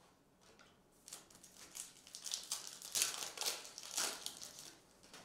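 Foil wrapper of a Topps Chrome trading card pack crinkling as it is handled and torn open, in a run of irregular crackles.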